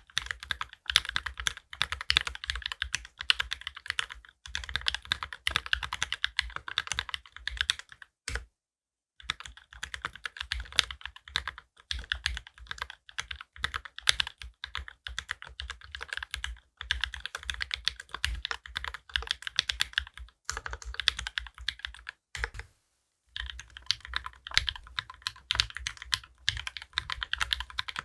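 Custom mechanical keyboard with linear switches (Gateron Ink Black housings with UHMWPE stems, lubed, on a brass plate, with GMK keycaps) being typed on continuously: a fast, uneven run of key clacks that stops briefly twice.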